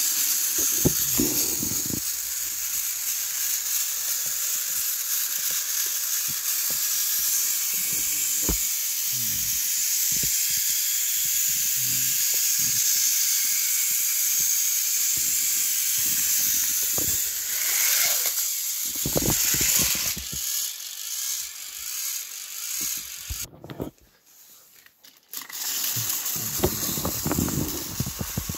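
Battery-powered toy train engines running on plastic track: a steady whirring hiss of small motors and wheels, with scattered clicks and knocks. It cuts out for a moment near the end and then resumes.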